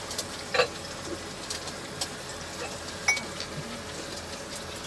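A few short, sharp clinks and knocks over steady background noise, the loudest about half a second in and two more about two and three seconds in.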